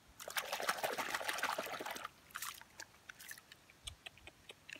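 Shallow muddy water splashing for about two seconds as a small toy truck is swished in it to rinse off the mud, followed by scattered drips and small clicks.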